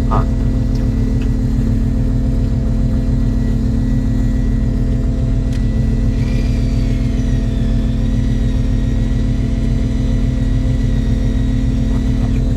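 Fishing boat's engine running steadily with a low drone. About six seconds in, a faint higher whine joins it, dips slightly in pitch and then holds steady.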